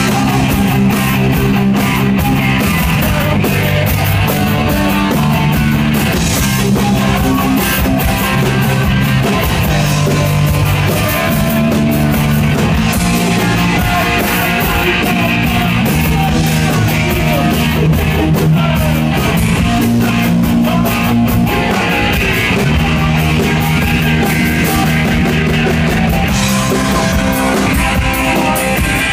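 Live rock band playing loud, with distorted electric guitars, bass and a drum kit going steadily throughout.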